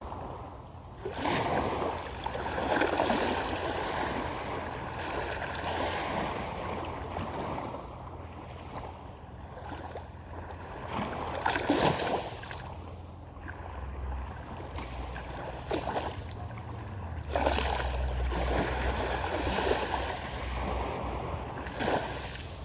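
Gentle sea waves washing in, each surge swelling and falling back every few seconds, over a steady low rumble that grows louder past the middle.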